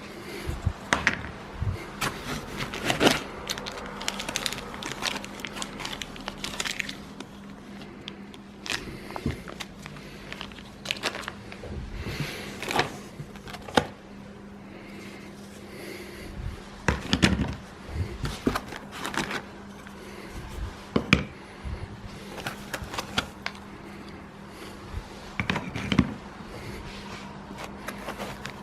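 Kit parts and their plastic packaging being handled: bags crinkling, with irregular clicks and knocks as pieces are picked up and set down, over a faint steady hum.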